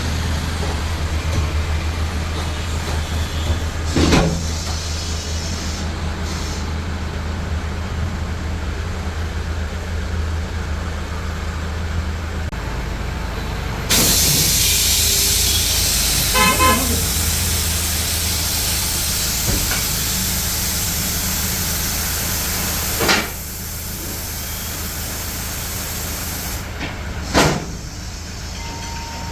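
Motor vehicles running in road traffic, with a steady low engine hum. A short pulsed horn toot comes a little past the middle, and a loud hiss runs through the middle stretch. A few brief sharp sounds are scattered through.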